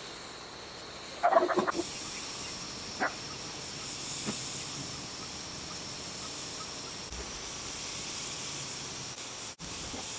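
A short, loud call from a fowl about a second in, over a steady high-pitched hiss, with a couple of faint taps later.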